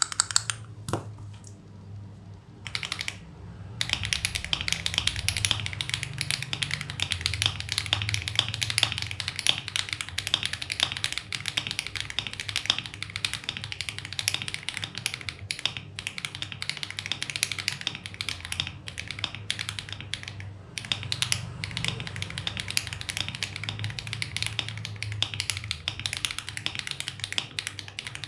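Typing on a mechanical keyboard's alphanumeric keys fitted with Akko Lavender Purple tactile switches: a few single keystrokes, then fast continuous typing from about four seconds in, with a short pause later on. The keystrokes sound low-pitched rather than clacky.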